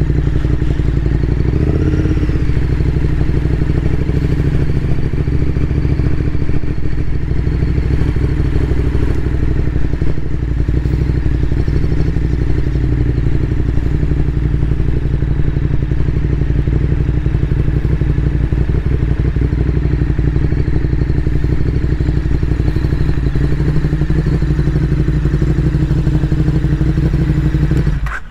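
Motorcycle engine running steadily at low revs as the bike rolls slowly, with a brief small rev about two seconds in.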